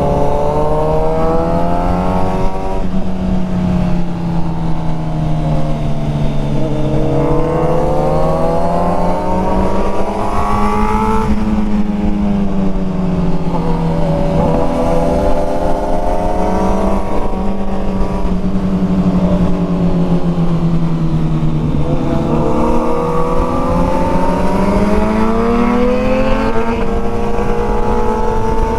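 Sport motorcycle engine heard onboard, pulling through the revs and easing off in turn. Its pitch climbs and then drops sharply several times as it shifts or rolls off, with steady stretches between.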